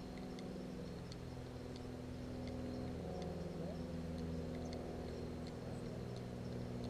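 A steady engine-like hum from a running motor, its pitch shifting slightly about halfway through, with faint high ticks over it.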